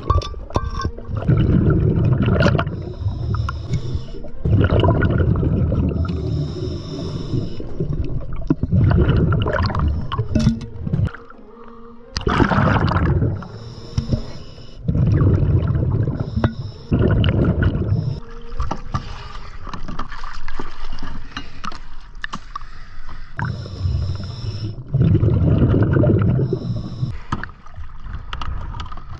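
Scuba regulator breathing underwater: a hiss with each breath in and a loud bubbling rumble of exhaled air with each breath out, repeating every few seconds.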